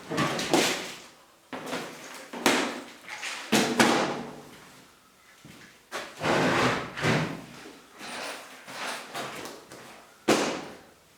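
A series of irregular knocks and scrapes, about a dozen, each starting sharply and fading over half a second or so, as of wooden things being handled, slid or shut.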